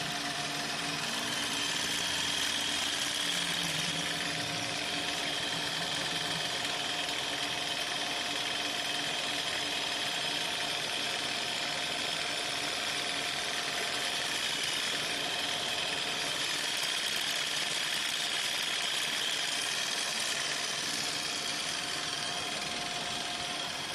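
Paper stick making machine running as it rolls wood-pulp paper into sticks: a steady mechanical noise with a constant mid-pitched tone and a higher hum above it.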